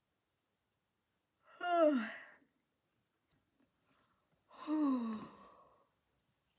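A woman yawning out loud twice, about three seconds apart, each yawn a voiced sound falling in pitch. The second is longer and trails off breathily.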